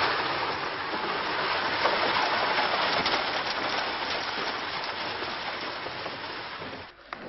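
Horse-drawn coach pulling away over a gravel courtyard: a steady crunching rush of wheels and hooves on gravel, growing fainter and cutting off about seven seconds in.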